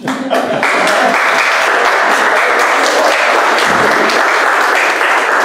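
A small group of people applauding: steady clapping that swells within the first half second and then holds level.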